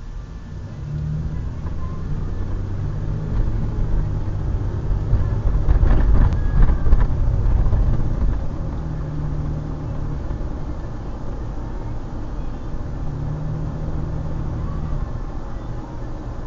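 Car engine and tyre noise heard from inside the cabin as the car pulls away from a stop and gathers speed. It is loudest about six to seven seconds in, then settles into steady cruising.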